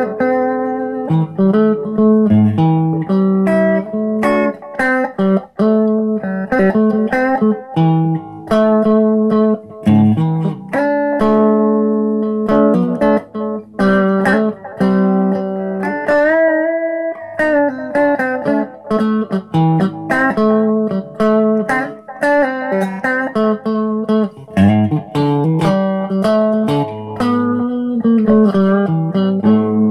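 Solo guitar played with the fingers: a continuous run of plucked single notes and chords, with one note bent and shaken in vibrato about halfway through.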